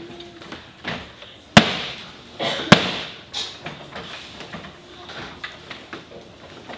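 Two loud slams about a second apart, each sharp with a short ring after it, followed by quieter scattered knocks.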